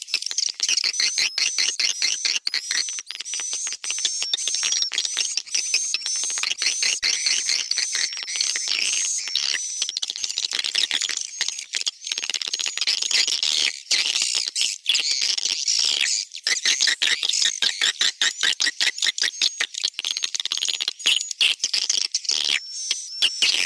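Recorded swiftlet (walet) lure sound for a swiftlet house, the 'tarik' calling sound mixed with the 'inap' roosting sound: dense, rapid clicking under a steady run of high, repeated twittering chirps.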